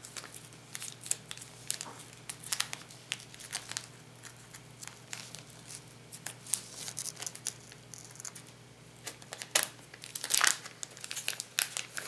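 Plastic soft-bait package crinkling and rustling in the hands as it is torn open and handled, in scattered short crackles with a louder burst about ten seconds in.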